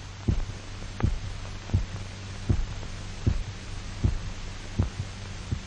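Regular heartbeat-like thumps, one about every three-quarters of a second, over a steady low hum. They are heard as the revived dog's heart beating on its own once the artificial circulation machine is switched off.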